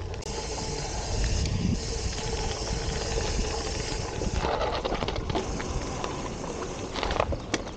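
Gravel bike rolling over a dirt forest trail: tyre noise with the bike rattling and clicking over bumps, and wind rumbling on the microphone.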